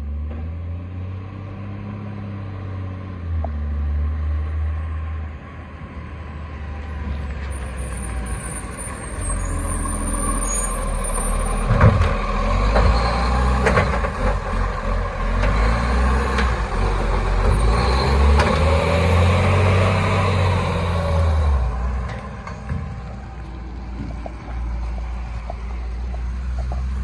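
Automated side-loader garbage truck's diesel engine running and revving as its hydraulic arm lifts a wheelie bin and tips it into the hopper, with a sharp bang about halfway through and a hiss of air brakes. The sound grows louder while the bin is emptied, then falls away near the end as the truck drives off.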